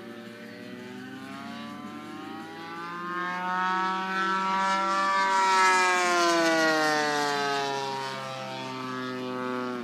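Radio-controlled Seagull Dewoitine model's 36cc two-stroke engine and 18x10 propeller in flight, the engine note climbing in pitch and getting louder until about halfway, then sliding back down.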